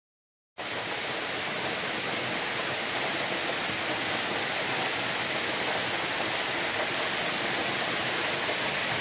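Heavy rain pouring down in a dense, steady hiss, starting abruptly about half a second in after silence.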